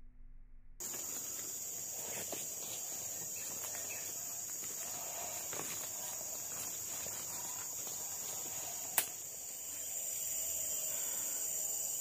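Steady high-pitched drone of forest insects, starting about a second in, with faint rustling of footsteps through undergrowth and a single sharp click about nine seconds in.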